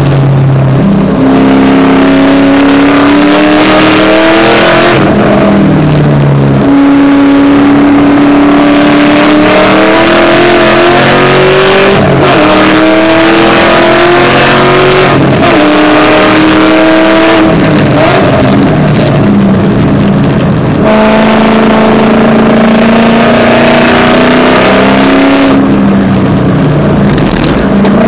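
Shelby GT500's supercharged V8, fitted with a smaller 2.6-inch supercharger pulley and long-tube headers, at full throttle on track: the engine note climbs steadily in pitch through each gear and drops back at every shift or lift for a corner, over and over.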